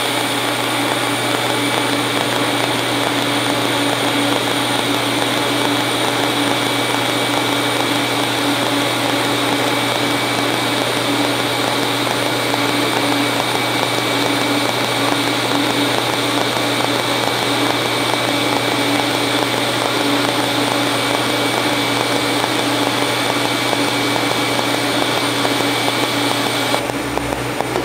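HTP Invertig TIG welder's pulsed arc fusing a 16-gauge steel outside corner without filler rod: a steady hiss with a constant hum under it. It cuts off near the end as the arc is stopped.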